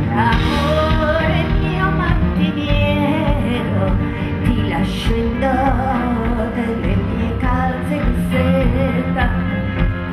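A live band playing, with a woman singing the lead melody over guitars, drums and bass.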